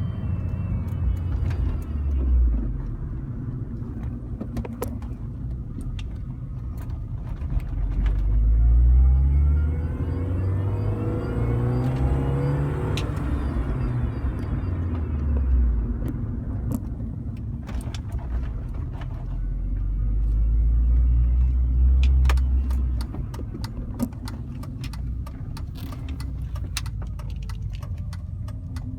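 2005 Mini Cooper S's supercharged four-cylinder pulling away and easing off several times, its note rising and falling. A whine climbs in pitch under acceleration, the strange 'electrical' noise the owner hears whenever accelerating, with light clicks and rattles throughout.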